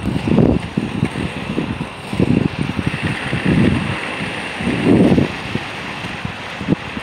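In-line skate wheels rolling over rough, cracked asphalt, with wind buffeting the microphone in uneven surges.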